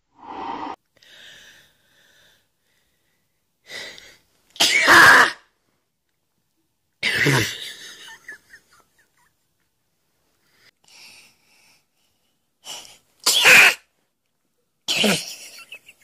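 A woman sneezing about four times, each loud sneeze coming after short gasping breaths. The sneezes are forced, brought on by tickling inside her nostril with a thin metal wire.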